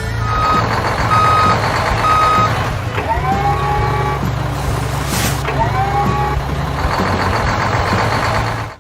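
Truck engine running with a reversing alarm giving three evenly spaced beeps in the first few seconds. Later come two rising whines and a short hiss of air.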